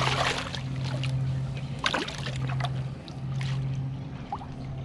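A snook splashing at the water's surface as it is grabbed at the side of the boat: a burst of splashing at the start, another about two seconds in, and a few smaller splashes after. A steady low hum runs underneath.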